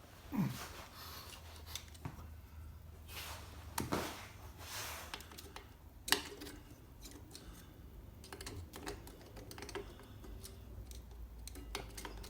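Scattered, irregular light metallic clicks and taps of brake pads and a thin alignment pin being worked into a motorcycle's rear brake caliper, with a sharper click about six seconds in.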